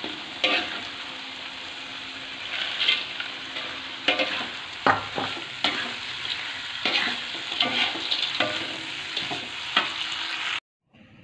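Sliced jengkol frying in chili sambal in a metal wok, with a steady sizzle while a metal spatula stirs and scrapes against the pan in irregular strokes. The sound cuts off abruptly near the end.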